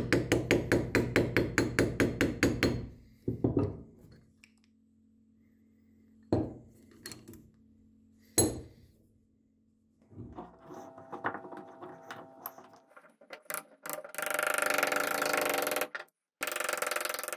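Small ball-peen hammer tapping a steel punch against the screw clamp's handle fitting. It starts with quick, even metal taps, about six a second, for about three seconds, then gives a few single knocks. Later come clinks and rattles of the metal clamp parts being handled.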